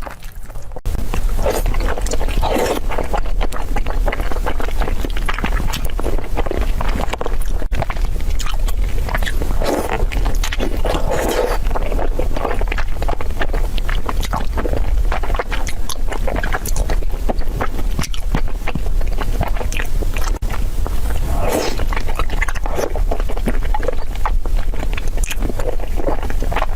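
Close-up chewing and biting of food, a dense run of crisp clicks and crunches over a steady low rumble.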